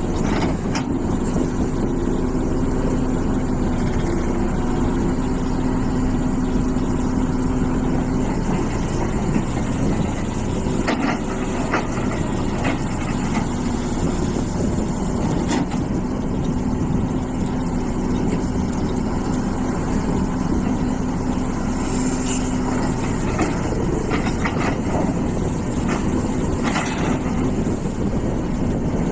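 Hitachi EX450 excavator running steadily as it digs. A pitched hum comes and goes over the engine, and a few sharp knocks are heard.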